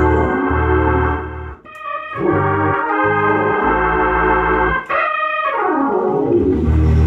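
Two-manual Hammond-style organ played with full chords over a held bass, breaking off briefly about one and a half seconds in. About five seconds in comes a fast run sweeping down the keyboard.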